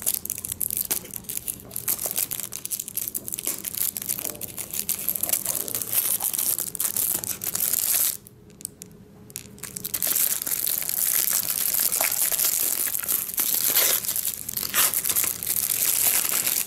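Clear plastic shrink wrap being cut and torn off a small cardboard box, crinkling and crackling, with a pause of a second or two about eight seconds in.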